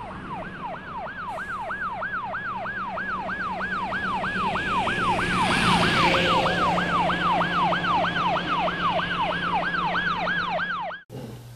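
Emergency vehicle siren on a fast yelp, about three rising-and-falling wails a second. It grows louder to a peak about halfway, fades again, and cuts off suddenly near the end.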